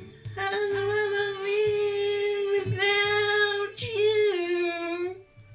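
A woman singing a long held note into a handheld microphone, broken briefly twice, sliding down in pitch near the end and stopping about five seconds in.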